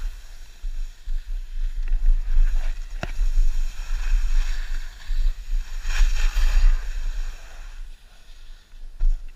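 Wind buffeting the microphone of an action camera carried by a skier going downhill, under the hiss and scrape of skis carving over snow. The scrape swells up and down with the turns, and there is a single sharp click about three seconds in.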